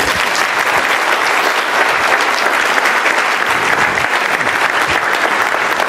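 Luncheon audience applauding steadily, dense clapping from a large crowd in a hall.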